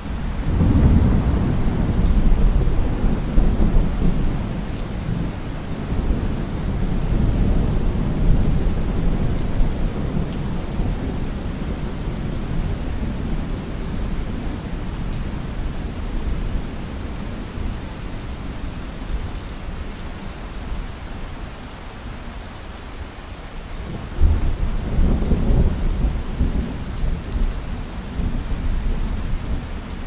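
Thunderstorm: steady heavy rain with rolling thunder. A long rumble fills the first several seconds and slowly dies away, and a second sudden clap and rumble comes late on.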